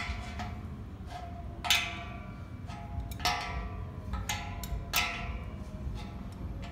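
Adjustable wrench clinking against a threaded elbow fitting as it is tightened into the tank port: a series of sharp metal clinks, each ringing briefly, about every second and a half.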